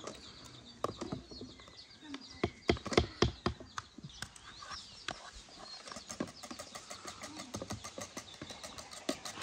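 Whisk and metal spoons clinking and scraping against an aluminium pot and a plastic bowl as whipped egg whites are scraped into the pot, with a few louder clanks about three seconds in. From about six seconds, a fast run of light clicks, several a second, as the whisk beats the mixture in the pot. Birds chirp faintly in the background.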